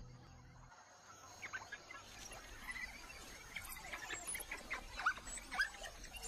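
Faint bush ambience with scattered short, high chirps, most of them rising in pitch, after the last of the soundtrack music fades in the first second.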